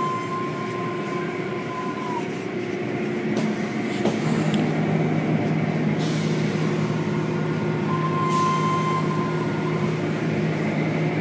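Automatic tunnel car wash machinery running: a steady mechanical drone of motors, brushes and water, with a low hum that comes in and gets a little louder about four seconds in, and a faint high whine at times.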